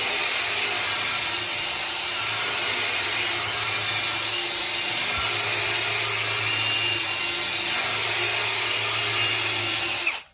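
An electric power tool running steadily at full speed, with a strong hiss over a low motor hum, then cutting off abruptly near the end.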